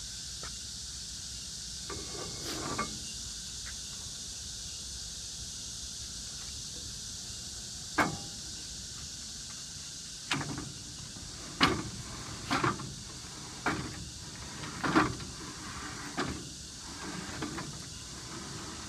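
Aluminium crosscut fence and clamps on a sliding table saw's carriage being handled and set: a series of about eight sharp metal clacks and knocks in the second half, over a steady high hiss.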